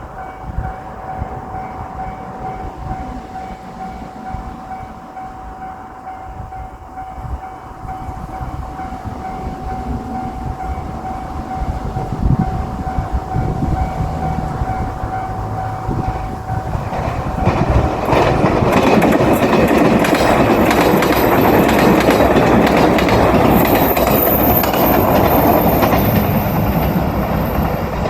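Level-crossing warning bell ringing steadily while a train approaches with a rising rumble. About 17 seconds in, a JR Shikoku limited express diesel railcar train passes close by, loud, its engines running and its wheels clacking over the rail joints, drowning out the bell.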